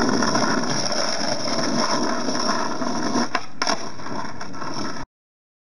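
Skateboard wheels rolling on asphalt with a steady rough rumble, and two sharp clacks of the board a little past three seconds in. The sound cuts off suddenly about five seconds in.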